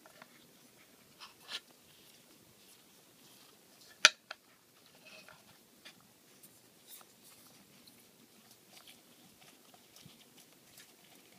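Handling noises from a metal pen box and its cork insert being worked out by hand: light scraping and rustling with a few soft ticks, and one sharp click about four seconds in, followed by a smaller one.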